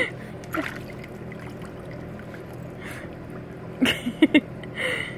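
Steady low hum of a hot tub's pump. A few brief vocal sounds come at the start and again in a quick cluster about four seconds in.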